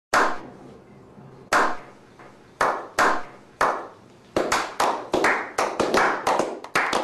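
A small group slow-clapping: single hand claps a second or so apart, then speeding up into quicker, overlapping clapping about four seconds in.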